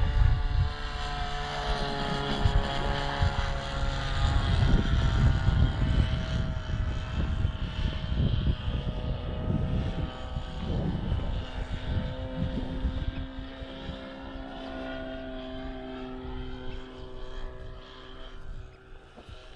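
Sig Hog Bipe RC biplane's engine and propeller running in flight, the engine note shifting up and down in pitch. Gusts of wind buffet the microphone. The sound gets quieter after about two-thirds of the way through.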